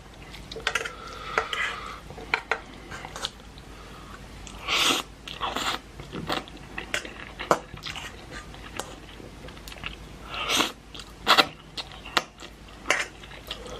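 Close-miked eating of spicy instant ramen noodles: chewing and mouth sounds, several short noisy bursts, and a few sharp clicks of a utensil against the bowl, the loudest about eleven seconds in.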